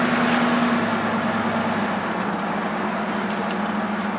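1971 Ford pickup truck being driven: steady engine and road noise with a constant low drone.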